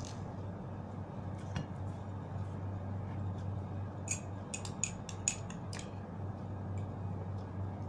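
Metal spoon stirring a drink in a ceramic mug, clinking quickly against the sides about eight times over two seconds, starting about four seconds in. A steady low hum runs underneath.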